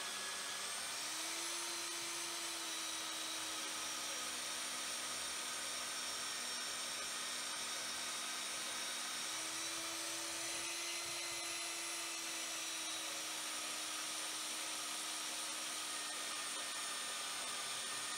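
Portable metal-cutting bandsaw running steadily through a 50 mm round bar of hard turning steel: a steady motor whine with several tones over the hiss of the blade in the cut. The pitch shifts slightly about a second in and again about halfway. The motor is not labouring under the load.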